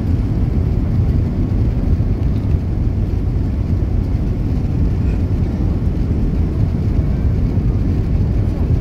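Airliner cabin noise on approach to landing: a steady low rumble of the jet engines and airflow over the wing, with flaps extended, heard from inside the cabin.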